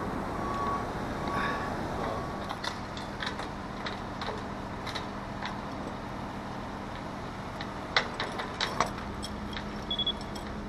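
Metal sailboat rigging, wire shrouds and their fittings, clinking and tapping against the mast as it is handled, with a cluster of sharper clinks near the end. A steady engine drone runs underneath.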